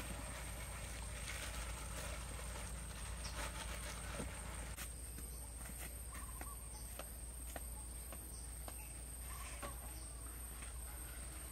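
Gloved hands working chicken pieces in batter in a large steel bowl, a wet rustling with small knocks, for about the first five seconds. After that, only scattered light knocks and footsteps remain over a steady high insect buzz with a pulsing insect call.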